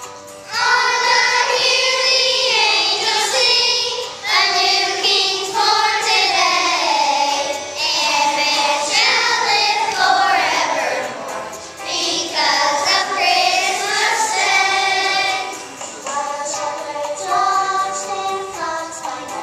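A group of young schoolchildren singing together, some into handheld microphones. The singing comes in about half a second in and drops briefly near the end.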